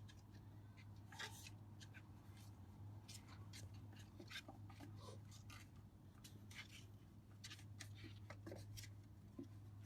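Faint, irregular scratchy rustles and light ticks of close handling, over a steady low hum.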